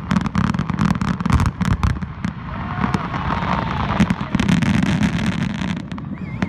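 Aerial fireworks going off in a rapid barrage: a quick string of sharp bangs at first, then a denser, steadier stretch with a few louder bangs that dies down shortly before the end.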